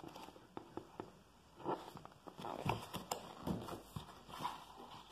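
Paper pages of a picture book rustling as the book is turned and handled close to the microphone, with a few light taps and knocks scattered through.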